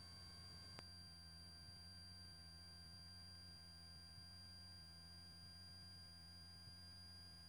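Near silence on the cockpit intercom audio feed: a faint, steady high-pitched electrical whine over a low hum, with one soft click about a second in.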